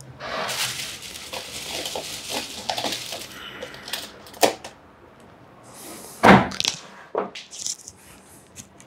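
Handling noises: rustling for the first few seconds, then several separate knocks and clicks, the loudest a thump about six seconds in.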